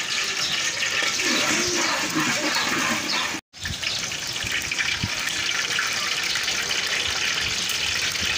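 Hot oil sizzling steadily in a large iron karahi as a batch of peeled boiled eggs fry for egg korma. The sound cuts out for a moment about three and a half seconds in, then the sizzling carries on.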